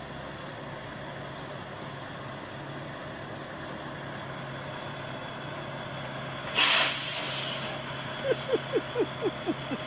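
Semi-truck diesel engine running steadily, with a loud short hiss of air brakes about two-thirds of the way in. Near the end comes a quick run of short squeaks, each falling in pitch, about four a second.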